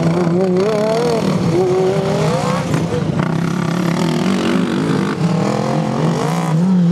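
Several racing ride-on lawn mower engines running hard, their pitches rising and falling as the mowers accelerate and ease off through the corners, with one steadier low engine note under the others.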